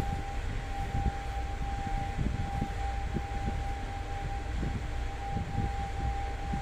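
Passenger lift car travelling through an express zone: a steady high whine held on one pitch over a constant low rumble.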